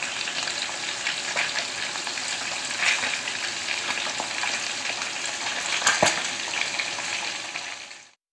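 Salmon pieces frying in hot oil in a pan: a steady sizzle with frequent sharp crackles and pops, fading away near the end.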